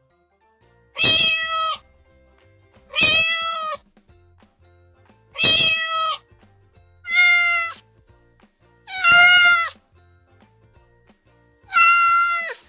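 A cat meowing six times, each meow under a second long, with a pause of a second or two between them.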